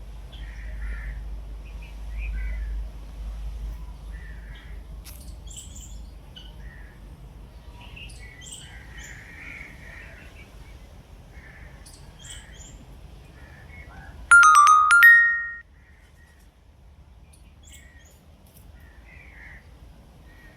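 Birds calling intermittently with short calls and chirps. About fourteen seconds in, a loud electronic jingle of steady tones rising in pitch sounds for about a second and a half.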